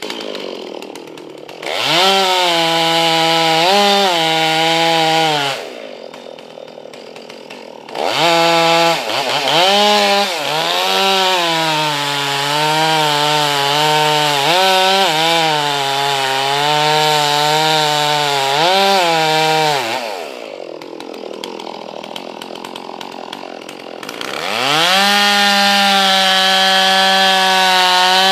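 Two-stroke chainsaw engine running and cutting wood. It idles, revs up to full throttle, drops back to idle twice, and in between its pitch sags and recovers repeatedly under load, then holds full throttle near the end.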